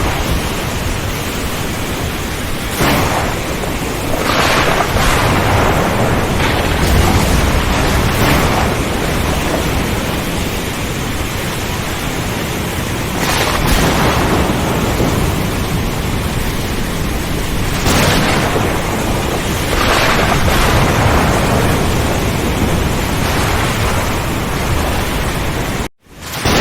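Thunderstorm: a steady rush of rain with repeated thunder cracks and rumbles swelling up every few seconds. The sound cuts out briefly near the end and comes back.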